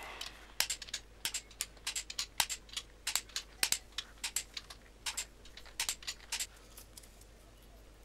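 Ratcheting torque wrench clicking as the crankshaft main bearing cap bolts of a Toyota 3T-GTE engine are tightened. The sharp clicks come several a second and stop about six and a half seconds in.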